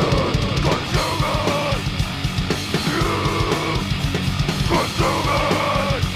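Hardcore punk/grindcore band recording: fast drums, distorted electric guitar and bass playing a loud, dense riff.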